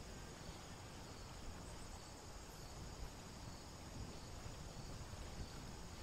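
Faint outdoor ambience: insects chirping steadily in the background over a low, even rumble of noise.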